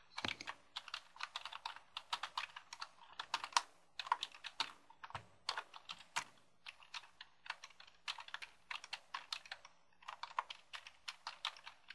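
Typing on a computer keyboard: quick, uneven clusters of key clicks with short pauses between them.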